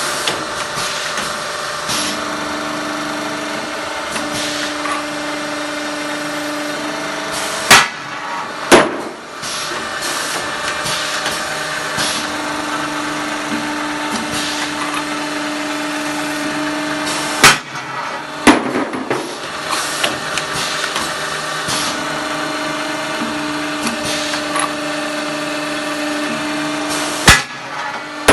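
Automatic length-finishing and chamfering machine running through repeated work cycles: a steady machine whine for about five seconds, then a sharp loud clack and a second knock about a second later. The cycle comes round three times, about every ten seconds.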